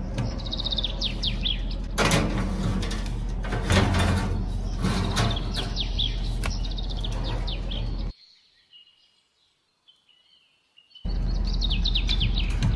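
Steady low electrical hum of a countertop electric oven, with birds chirping in quick falling notes over it and a few metal clatters as the cake tin and wire rack are handled. The sound drops out for about three seconds, then the hum and chirping return.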